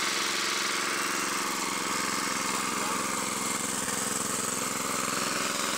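Small petrol engine running steadily at constant speed, belt-driving a flour-mill grinder (chakki) that is grinding roasted chickpeas into sattu.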